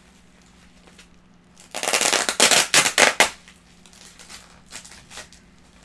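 Bubble-wrap packaging and packing tape being pulled open by hand: a loud crackling burst lasting about a second and a half, starting near two seconds in, then a few softer crinkles.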